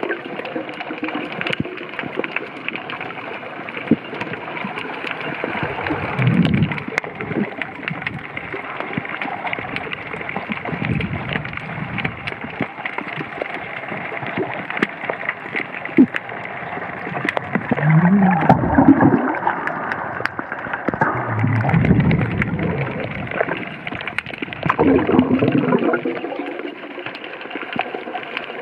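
Muffled water noise heard through an underwater camera, with a low rumbling swell every few seconds.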